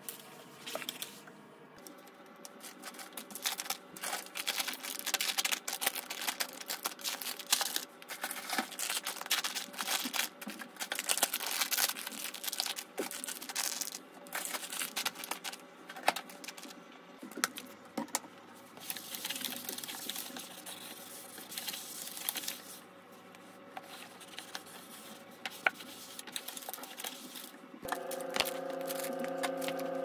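Close handling sounds of household work: irregular crackling, rustling and many small clicks and taps. Background music comes back near the end.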